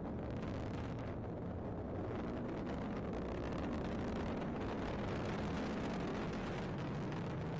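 An Atlas V rocket climbing under its main engine and solid rocket boosters: a steady, crackling rumble of rocket exhaust, growing slightly louder about two seconds in.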